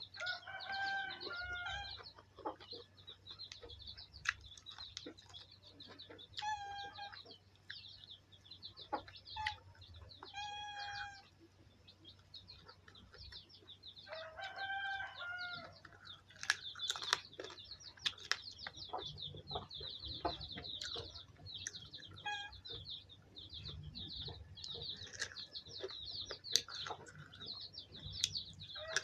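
Chickens calling: about six drawn-out calls that rise and fall in pitch, a few seconds apart, over nearly continuous high chirping, with scattered short clicks.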